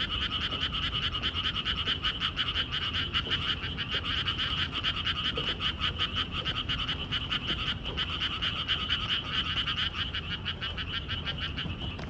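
A chorus of frogs calling continuously, a steady stream of rapid pulsed croaks overlapping one another.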